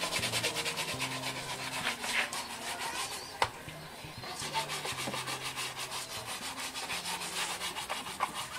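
Shoe brush scrubbing a leather shoe in rapid back-and-forth strokes, a fast even rubbing of bristles on leather. A single sharp click comes about three and a half seconds in.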